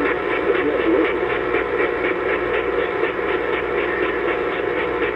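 Steady hiss and hum of radio static from a receiver, held to a narrow band with nothing above about 4 kHz.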